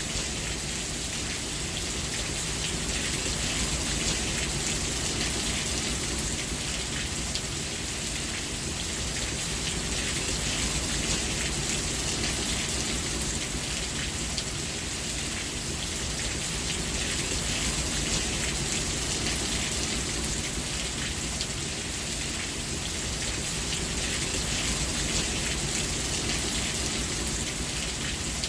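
Steady rainfall: a constant hiss of drops pattering on surfaces, with a low rumble beneath and no distinct events.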